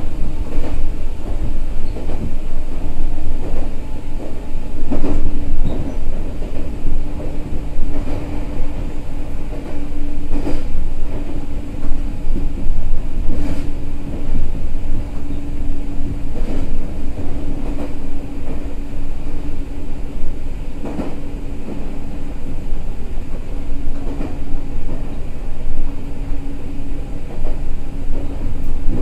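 Meitetsu 6000 series electric train running at speed: a steady low rumble and motor-gear hum, with wheels knocking over rail joints every few seconds.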